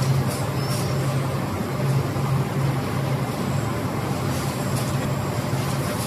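Steady low hum and noise of carton-line machinery running, with a few faint clicks.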